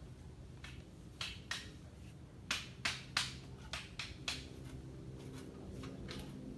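Hoe blade striking and scraping into soil: a string of about a dozen short, sharp strikes at uneven intervals, loudest around the middle and growing fainter toward the end, over a steady low hum.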